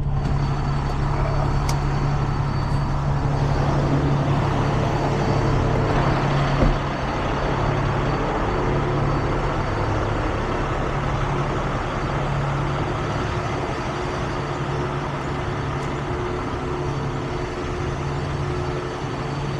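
Heavy tow truck's engine running steadily, with a single knock about seven seconds in.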